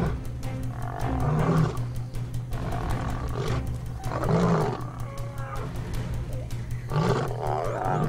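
Lions growling and snarling in several short bursts, a few seconds apart, over a low, steady music score.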